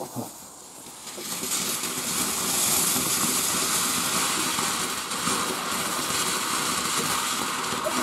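Firework fountain gushing sparks with a steady hiss that builds up about a second in.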